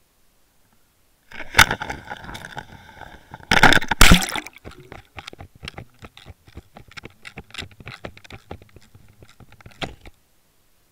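Sounds picked up by a Water Wolf underwater camera's own microphone as the rig is cast and sinks. A sharp knock, then a loud burst about three and a half seconds in as it enters the water, then a run of irregular clicks and crackles that stops suddenly about ten seconds in.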